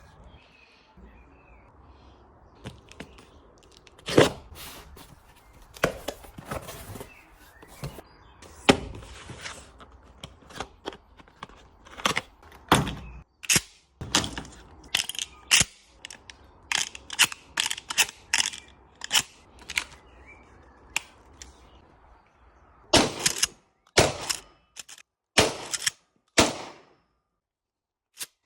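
An ammo box of 12-gauge shotgun shells being opened and handled: a string of sharp clacks and knocks, sparse at first and coming thick and fast from about halfway through. Near the end there are a few longer scraping sounds.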